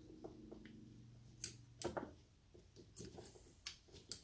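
Tin snips cutting the spot-welded metal straps off NiCd battery cells: a few sharp snips and clicks of metal, the loudest about a second and a half in.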